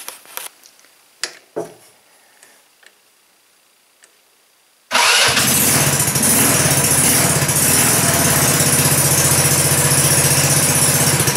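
A 150cc four-stroke single-cylinder go-kart engine starts abruptly about five seconds in, after a few faint clicks, then runs steadily on a little held throttle. It has a freshly replaced cylinder head and won't idle yet, which the owner puts down to stale fuel after sitting a year or two.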